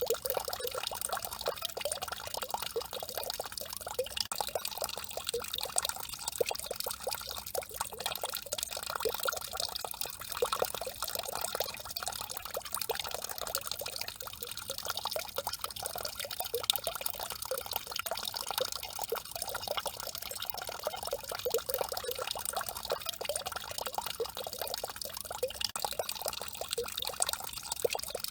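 Fountain water falling in a stream and splashing steadily into its basin, a continuous dense splash with fine dripping, unchanging throughout.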